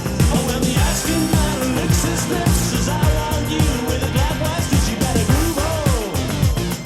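Upbeat rock-pop song with a busy bass line of falling notes, played back through an in-ear monitor and recorded from the earphone for comparison.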